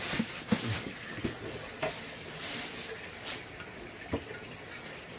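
Pork belly, garlic and chilli peppers sizzling on a hot griddle pan, a steady hiss broken by a few sharp taps and clicks.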